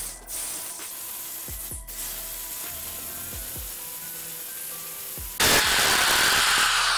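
Electric drill boring into an aluminium compressor housing: a steady cutting hiss that jumps suddenly much louder about five and a half seconds in.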